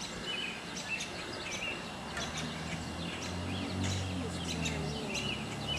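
Small birds chirping in the background, short high calls repeated throughout. From about two seconds in, a steady low hum comes up and fades out again near the end.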